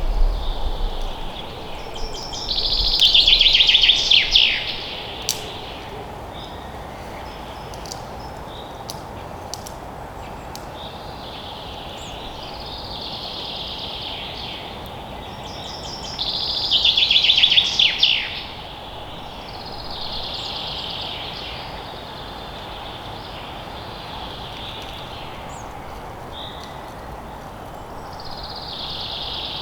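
Forest birds singing: a loud song of rapid notes sweeping downward comes twice, about 14 seconds apart, with softer, higher phrases between, over a steady background hiss.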